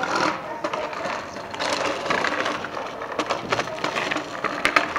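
Footsteps crunching on loose gravel, an irregular run of crackling crunches with a few sharper clicks near the end.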